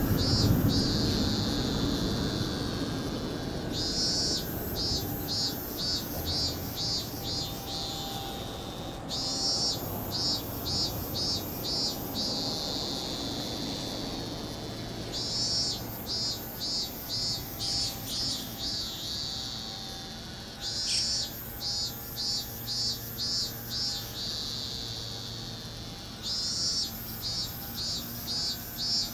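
Cicada singing: every five or six seconds a phrase of quick, high-pitched pulses, about three or four a second, each phrase trailing off in a falling drone.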